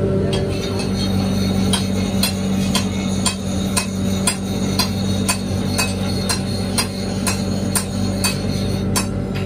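Hammer blows on metal in a steady rhythm, about two a second, over a steady low hum.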